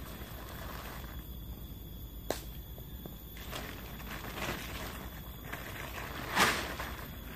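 A tarp sheet rustling as it is lifted and folded by hand, with a sharp snap about two seconds in and a loud swishing flap near the end.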